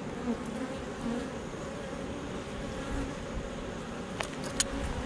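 Honey bees buzzing steadily over an open hive, a colony on its frames of comb. A few light clicks near the end, from the hive tool working against the wooden frames.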